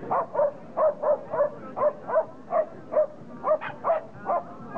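A dog barking over and over in short, high yaps at an even pace of a little under three a second.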